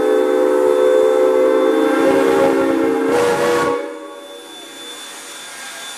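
Steam locomotive whistle of SNCF 141 R 568 blowing one long, loud blast of several tones together, with a rush of steam hiss in its last second or so. The whistle cuts off abruptly near four seconds in, leaving a soft steady steam hiss.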